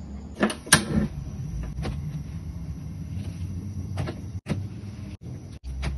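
Kitchen handling sounds: several sharp clicks and knocks, loudest about a second in, and a banana leaf rustling as it is passed over a gas stove burner, with a low steady rumble underneath.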